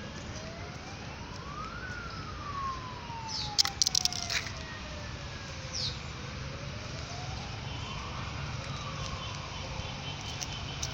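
A siren wailing, its pitch rising and falling slowly, with about one full rise and fall every six seconds, over a steady low rumble. A cluster of sharp clicks comes around the middle.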